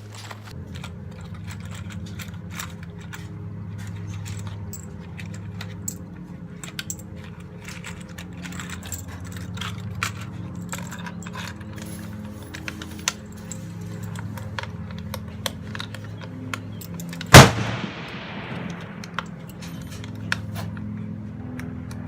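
A single loud rifle shot from a Blaser Tactical 2 with a 5.56 barrel, about three-quarters of the way through, ringing out and fading over about a second. Background music plays throughout, with scattered faint clicks.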